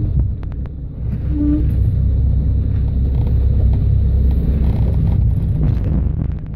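Four-wheel-drive off-road vehicle's engine running low and steady as it crawls over rock, with a deep rumble and a few brief clicks about half a second in and again near the end.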